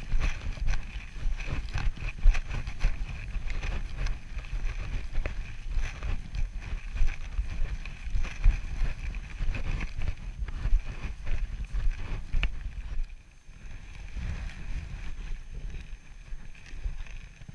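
Wind rumbling on a small camera microphone, with footsteps in snow and knocks from handling as the camera is carried across a snowy field. The rumble and knocks ease about 13 seconds in.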